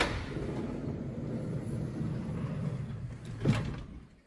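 Electric sliding side door of a Volkswagen Caravelle opening: a click from the latch at the start, a steady rumble for about three seconds as it runs along its rail, then a knock as it stops.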